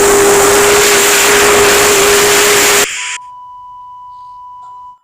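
Loud static hiss with a steady low tone running through it, cutting off sharply about three seconds in; then a quieter steady high beep holds for about two seconds and stops, the sign-off of a mock emergency alert broadcast.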